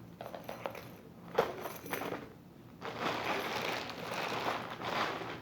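Packaging crinkling and rustling as a newly unboxed bag is handled and unwrapped, with a sharp click about a second and a half in and a longer, denser stretch of rustling from about three seconds in.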